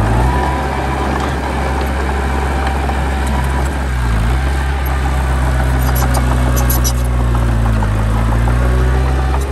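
Heavy diesel engine of an earthmoving machine running steadily. Its pitch dips briefly and recovers twice, about four seconds apart, with a few faint high clicks between.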